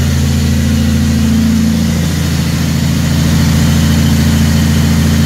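Heavy truck's diesel engine running under way, heard inside the cab. Its note drops slightly about two seconds in, and a second later it runs louder.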